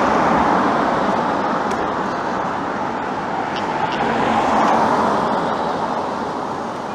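Road traffic going by on a busy street, a steady tyre-and-engine rush with cars swelling past twice, near the start and again about two-thirds through.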